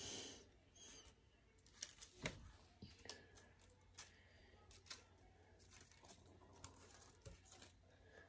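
Faint rustling of paper strips being handled and folded, with scattered light ticks and crinkles.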